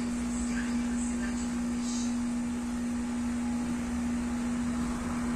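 OCA laminating machine running with a steady, even hum of one low tone.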